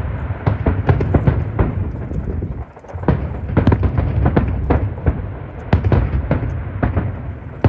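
A fireworks display: rapid, overlapping bangs and booms of exploding shells, several a second, with a brief lull a little under three seconds in.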